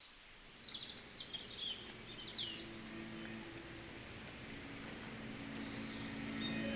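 Small birds chirping several quick times in the first few seconds over faint outdoor background noise. Low steady tones come in and grow louder toward the end.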